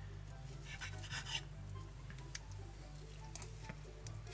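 Serrated table knife sawing through a stack of pancakes on a ceramic plate, with a short scraping rasp about a second in and light clicks of cutlery on the plate after it. A quiet low background of music runs underneath.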